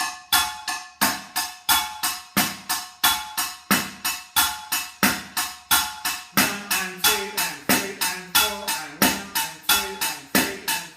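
Pots and pans struck with drumsticks as a makeshift drum kit, playing a steady eighth-note beat: a high metallic tap on every eighth, with a low sound on beats 1 and 3 and a mid sound on 2 and 4. Each strike rings briefly, with lower ringing tones joining from about halfway through.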